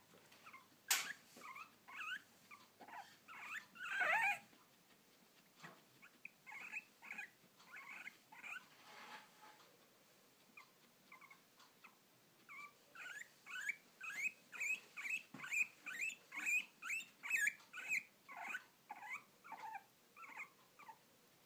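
Guinea pig hiccuping: runs of short, squeaky hics, about two a second, in bouts with pauses between them. A sharp click comes about a second in.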